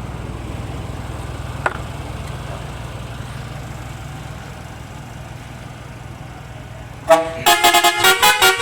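A vehicle engine rumbles steadily at idle. About seven seconds in, a multi-tone musical air horn starts up loudly, playing a quick tune of changing notes.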